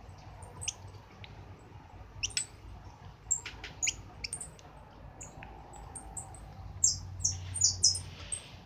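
Caged songbirds chirping: short, sharp, high calls scattered through, with a quicker run of louder chirps near the end.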